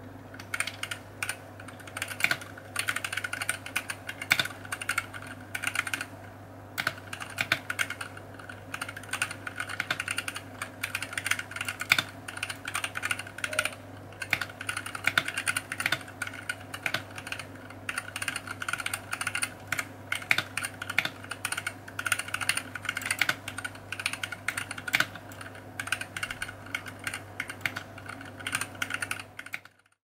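Typing on a 65% mechanical keyboard in a four-layer acrylic case: fast, continuous keystroke clacks with a couple of short pauses, fading out at the very end.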